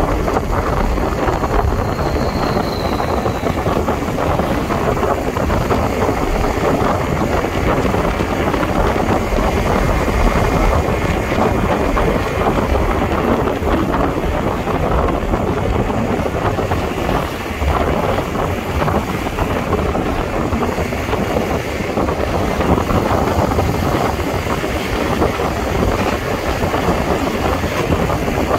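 Wind rushing over the microphone of a moving motorcycle: a steady loud roar with the bike's engine and road traffic underneath.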